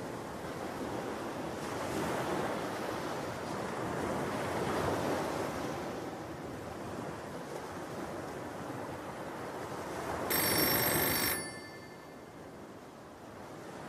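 Steady rush of waves breaking on a beach. About ten seconds in, a telephone rings once for about a second.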